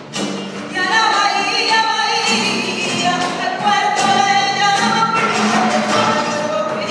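Live acoustic music: a singer holding long notes over a small ensemble with double bass, growing louder about a second in.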